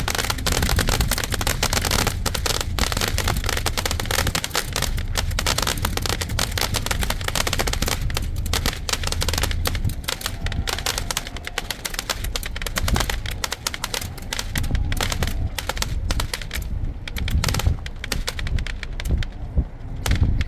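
Fireworks going off in a dense, rapid volley of cracks and bangs over a low rumble, the crackle thinning out over the last few seconds.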